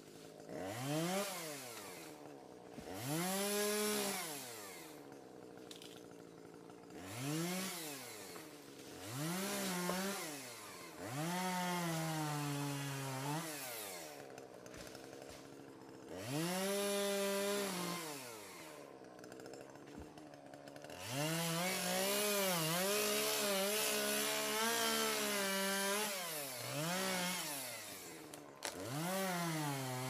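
Chainsaw revving up and dropping back to idle over and over, with several longer stretches held at full throttle while cutting through small trees.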